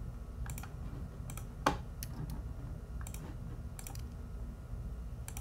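Computer keyboard keys and mouse buttons clicking at uneven intervals, about a dozen clicks with one louder near a second and a half in, over a low steady hum.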